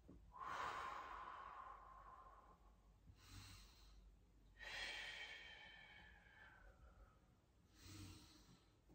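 Faint breathing of a man holding a prone back-extension: two long exhales, each fading over a couple of seconds, with short breaths in between.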